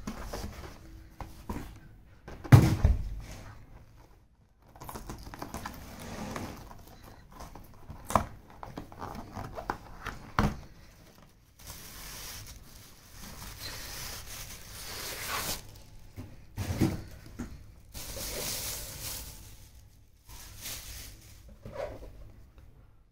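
Cardboard boxes being handled and opened: flaps and lids sliding and scraping, one heavy thud about two and a half seconds in and a few sharp taps, then a plastic bag rustling and crinkling as a wall clock is drawn out of it.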